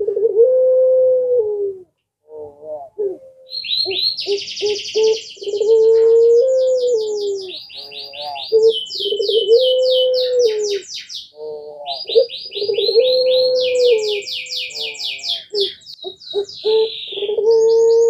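Puter pelung dove, a Barbary (ringneck) dove variety, cooing over and over: each call is a few short stuttered notes followed by one long drawn-out coo, repeating about every four seconds. From about three and a half seconds in, another small bird adds fast, high trilling chirps in bursts over the coos.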